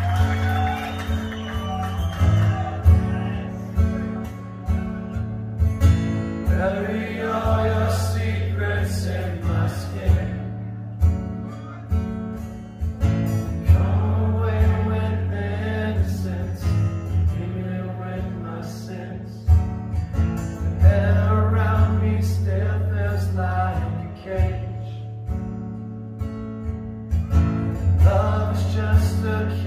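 A song with a singing voice, guitar, a strong bass line and regular drum hits, played through Canton Ergo floorstanding loudspeakers driven by a Technics SU-V900 amplifier as a listening test, heard through the room.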